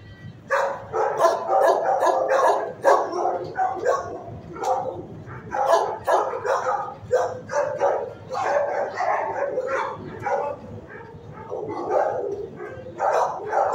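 Dogs barking in a shelter kennel block, many barks following one another with hardly a pause.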